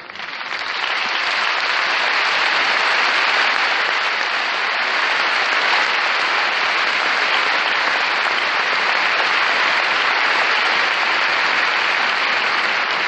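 A large audience applauding: a dense, even wall of clapping that swells up over the first second and then holds steady.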